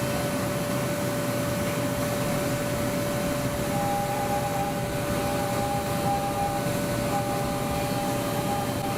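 A 5-axis CNC machining centre milling aluminium at high speed. It gives a steady cutting whine over a constant rushing noise, and a second, higher tone joins on and off from about four seconds in.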